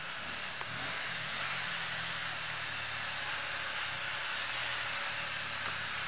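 Shallow stream of water running steadily over a rocky bed close by, a constant rushing hiss.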